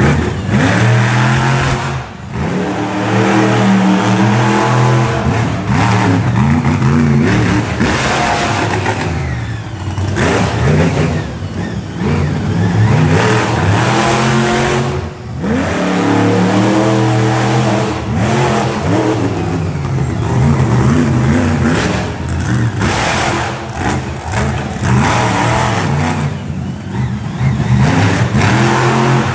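Monster truck engines revving hard, loud, over and over, the pitch climbing with each burst of throttle and falling back.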